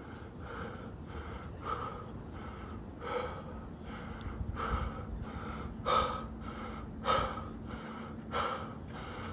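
A person panting hard after a sprint, with quick gasping breaths about two a second and a few louder ones about six, seven and eight seconds in.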